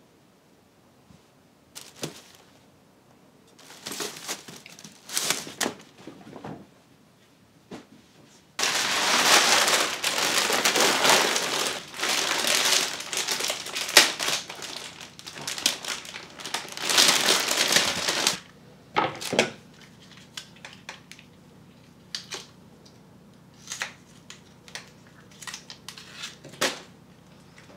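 Cellophane bouquet wrapping crinkling loudly as it is handled and pulled off a bunch of tulips, for about ten seconds starting near the middle, then a few lighter rustles of paper and stems.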